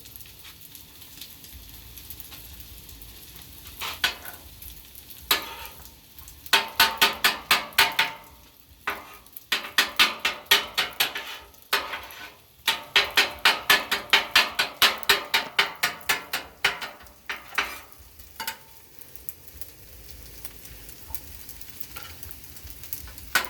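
Spatula scraping and chopping on the steel surface of a Blackstone flat-top griddle, mixing fried rice in fast rhythmic strokes, several per second in three long runs, over a steady sizzle.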